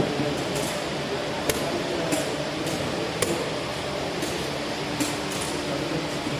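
Steady murmur of a crowded room with short, sharp clicks at uneven intervals, about eight of them: chess pieces set down on boards and chess clock buttons pressed during play.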